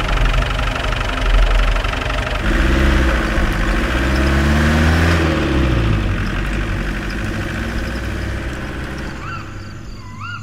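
A vehicle engine running. Its pitch slides up and down from about three to five seconds in, and then the sound slowly fades away.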